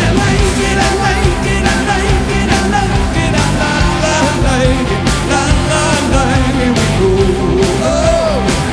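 Rock music with a steady drum beat and a singing voice.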